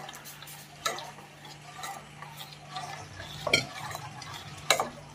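Steel ladle stirring thin urad flour batter in a steel pot, stirred quickly to keep lumps from forming, with a few sharp clinks of the ladle against the pot over a steady low hum.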